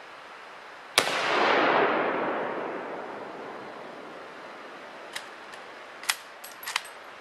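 A single shot from a Mauser K98 bolt-action rifle (7.92×57mm) about a second in, followed by a long rolling echo that swells and fades over about two seconds. Some four seconds later comes a quick series of sharp metallic clicks as the bolt is worked to eject the spent case and chamber the next round.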